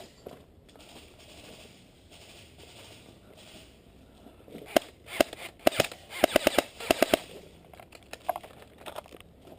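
Airsoft guns firing: a few single shots about five seconds in, then a quick string of shots.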